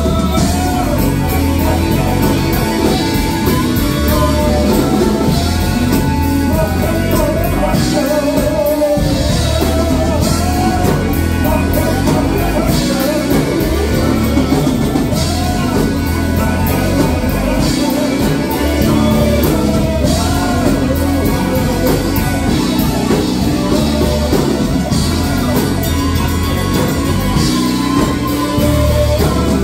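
Live funk band playing loud: electric guitars, bass and drum kit with a lead vocalist singing over them.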